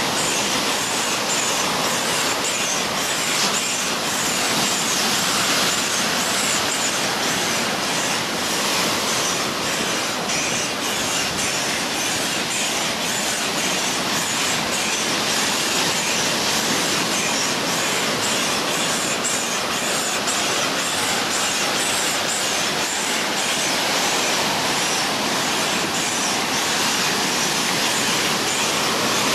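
Ocean surf washing onto the beach: a steady rushing noise.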